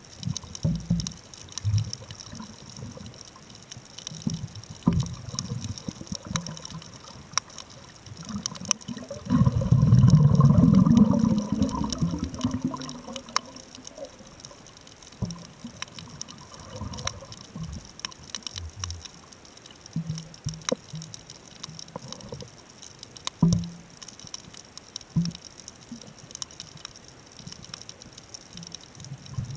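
Underwater sound on a coral reef at night: scattered sharp clicks and crackles throughout over a faint hiss, with a louder gurgling rush of water about ten seconds in that lasts about three seconds.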